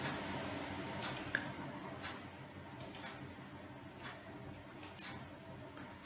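Computer mouse clicks advancing slide animations: three sharper clicks about two seconds apart, with a few fainter ones between, over a low steady room hum.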